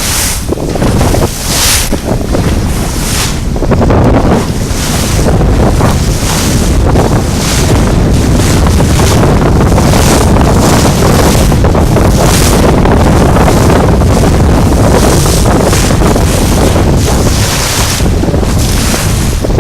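Strong wind buffeting the microphone, a loud, gusty rumble and roar that swells and eases in surges.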